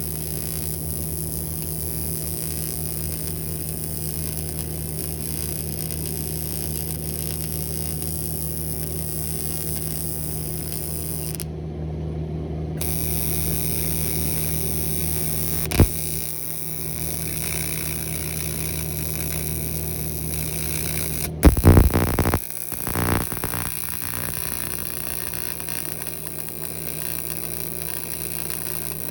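TIG welder on aluminum giving a steady electrical hum and buzz with a hiss over it. A sharp click comes about sixteen seconds in, and a short run of knocks and clatter about twenty-two seconds in.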